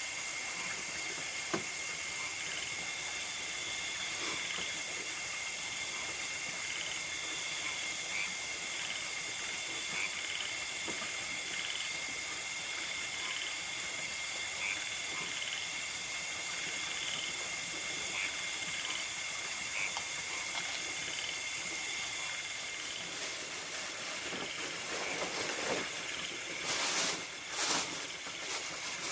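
Nocturnal insects in a rice field, crickets and the like, chirring in a steady high-pitched drone over an even hiss. There are a few louder rustles or knocks near the end.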